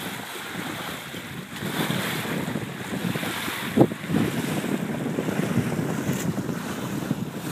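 Wind buffeting the microphone over the rush of water along a sailboat's hull as it sails. One short, sharp knock comes about halfway through.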